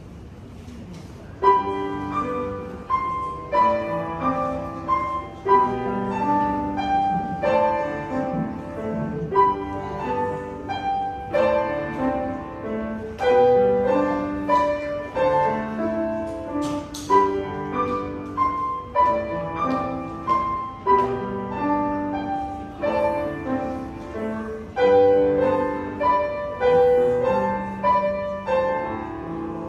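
Grand piano playing a simple classical-style piece, starting about a second and a half in with a clear, evenly paced run of single notes over a lower accompaniment.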